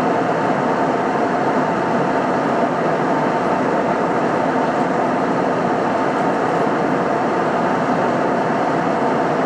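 Steady cabin noise of a jet airliner at cruise altitude: even, unchanging engine and airflow noise with a faint steady hum in it.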